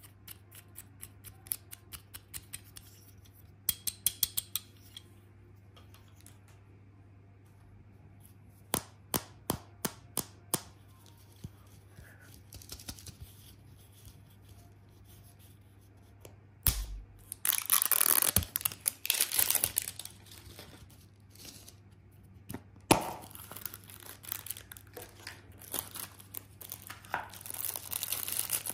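Sharp plastic clicks as a small plastic toy figure is handled, then long loud crinkling and tearing of thin plastic wrapping as surprise-egg candy packaging is torn open by hand.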